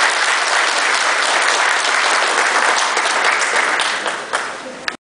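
Audience applauding: dense, steady clapping that thins out near the end and cuts off suddenly.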